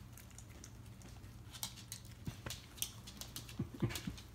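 Italian greyhound's claws clicking and tapping irregularly on a hardwood floor as it moves about, starting about a second and a half in and growing busier near the end.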